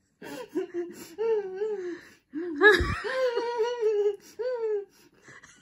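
A girl's wavering, whining half-laughs and whimpers through a mouthful, a reaction of disgust to a vegetable she dislikes. It comes as several short bursts with pitch bending up and down, with a brief low thump about three seconds in.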